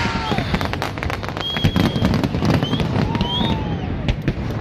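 Aerial fireworks display crackling and banging, a rapid run of sharp cracks over a constant rumble. A few short whistling tones rise and fall above it.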